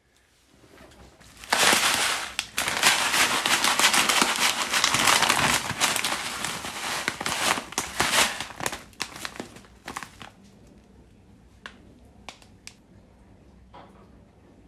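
Glossy plastic Huel food pouches crinkling as they are handled and unpacked, dense and loud for several seconds, then thinning to a few scattered crinkles and clicks near the end.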